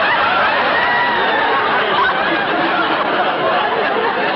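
Sitcom studio audience laughing, a steady, sustained wave of crowd laughter.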